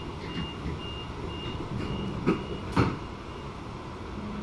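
An SMU electric train's door-closing warning beeping, a high beep about twice a second, with two thuds a little over two seconds in, about half a second apart, as the doors shut; the second thud is the loudest. The beeping stops soon after.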